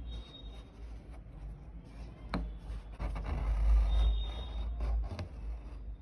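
Rustling and scraping of embroidery thread being drawn through cloth stretched tight in a hoop, with fingers handling the fabric, and one sharp click about two seconds in. The rustle is loudest a little past halfway, as the thread is pulled taut.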